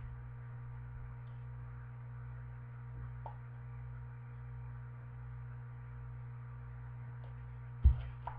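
Steady low electrical hum with a light hiss. A single sharp thump comes near the end as the picture book is lowered and handled.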